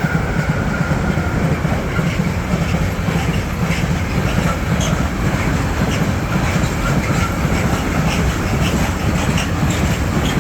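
H0-scale model train with a TRAXX locomotive hauling coal wagons, running along the track: a steady running rumble with quick, uneven clicks of wheels over the rail joints. The tail of its horn fades out in the first second.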